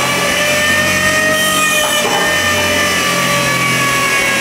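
Electric drive motor of a 1950s tractor converted to electric power, running with a steady whine that falls slowly in pitch over a low hum, with a single knock about two seconds in.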